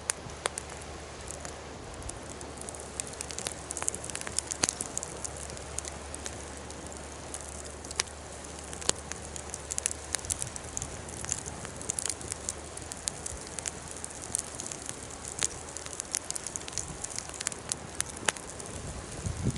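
Campfire burning, with irregular sharp crackles and pops over a steady hiss.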